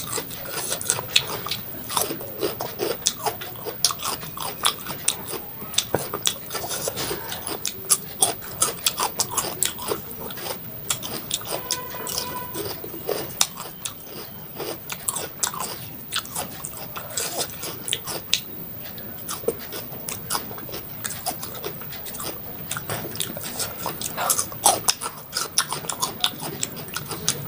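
Close-miked crunchy bites and chewing of raw salad vegetables: a rapid, irregular run of sharp crunches.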